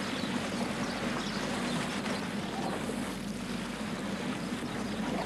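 Boat motor running steadily with a low hum, under a continuous wash of water and wind noise.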